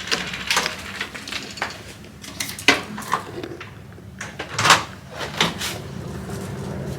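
Irregular knocks and clatters, about a dozen sharp hits with the loudest near the middle and later on, over a steady low hum.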